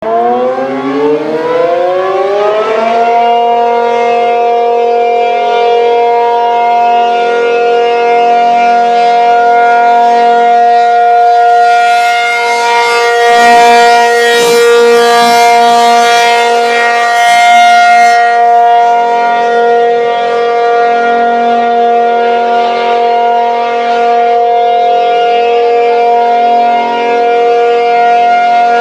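Outdoor tornado warning siren winding up, its pitch rising for about three seconds, then holding a steady, loud wail. It is sounding for a tornado drill.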